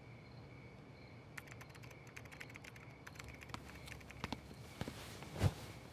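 Faint typing on a computer keyboard: a quick run of keystrokes, then slower scattered taps, ending in a single soft thump.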